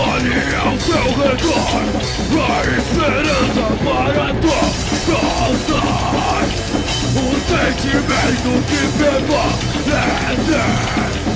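Metalcore band playing live: screamed vocals over distorted electric guitar, bass guitar and drums with cymbals.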